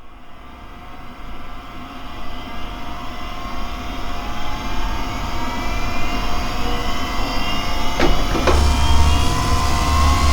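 Sci-fi laser explosion sound effect. A layered whine of many tones builds and slowly rises in pitch as it grows louder. About eight seconds in, two sharp cracks half a second apart set off a deep rumble.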